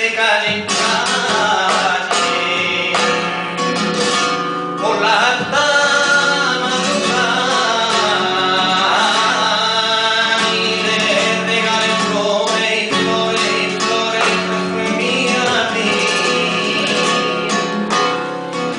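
Male flamenco singing (cante) with flamenco guitar accompaniment, the voice holding long, wavering sung lines over the plucked guitar.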